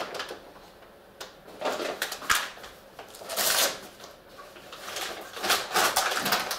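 Rustling handling noise of a cricket bat being drawn out of its black bat cover, in several uneven bursts, with a light knock about two seconds in.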